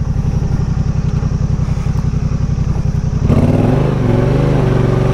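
Yamaha Ténéré 700's parallel-twin motorcycle engine idling with an even pulse, then about three seconds in the throttle opens and the revs rise and hold higher.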